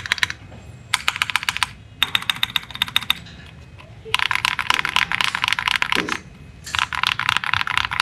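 Custom mechanical keyboard with JWICK full nylon switches on 60 g springs, typed on quickly in runs of keystrokes with short pauses between.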